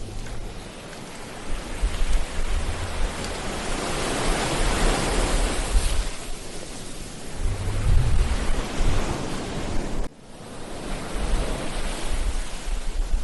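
Ocean surf breaking and washing up a beach, with wind buffeting the microphone in low rumbles. The wash swells to its loudest about four to six seconds in, drops away abruptly about ten seconds in, then builds again.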